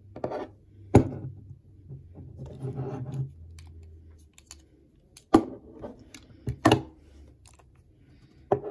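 Hard plastic and metal handling clicks and knocks from a flip-key remote and a metal pin-removal pliers tool on a tabletop. There are four sharp clicks: about a second in, twice more between five and seven seconds, and one near the end, with light rustling between them.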